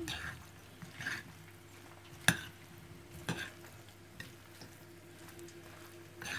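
A metal spoon stirring a chopped bulgur salad of tomato, cucumber and herbs in a bowl: a soft wet rustle, with the spoon clicking against the bowl about once a second.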